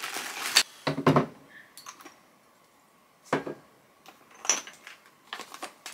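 Perfume bottles being picked up and set down into a storage bin: a brief scraping rustle at the start, then a few separate knocks and clinks spaced a second or more apart.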